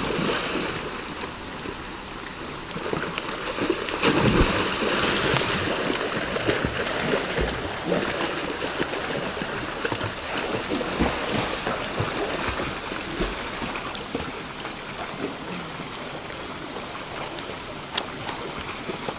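River water rushing steadily, with a loud splash about four seconds in as a swimmer enters the water, then the splashing of a swimmer's strokes.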